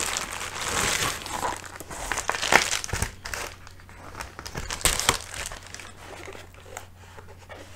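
An Amazon Prime mailer envelope crinkling and rustling as a small cardboard box is pulled out of it and handled. The crinkling is densest in the first three seconds, then thins out, with a few light knocks as the box is handled.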